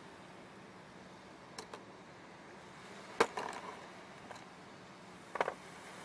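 A few sharp clicks and taps of small fishing tackle being handled, over a steady low hiss: two light clicks early, the loudest click about three seconds in, and a short rattle of clicks near the end.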